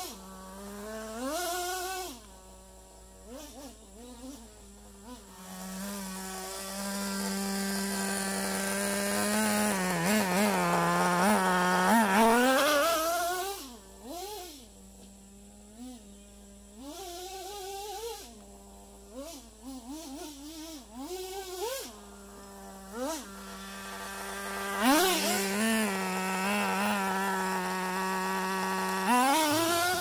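Small nitro (glow-fuel) engine of a Traxxas Slash RC truck running through its stock exhaust, a high buzz whose pitch climbs and falls as the throttle is worked, holding one steady pitch for several seconds at a time.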